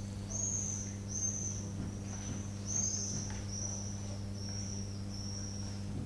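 A bird singing: a run of about eight high, thin whistled notes, each under half a second and falling slightly in pitch, repeated at an even pace, over a steady low electrical hum.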